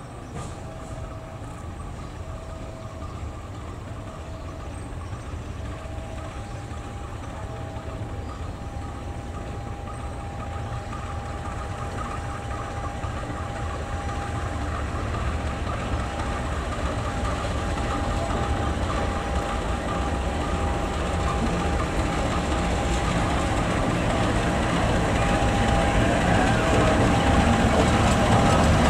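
GE U18C (CC 201 class) diesel-electric locomotive running light, its diesel engine growing steadily louder as it approaches and passes. A steady high whine sits over the engine from a few seconds in.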